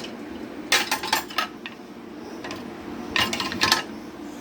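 Dishes and utensils clinking and clattering as they are loaded into a dishwasher, in two short runs of clinks: one about a second in and another around three seconds in.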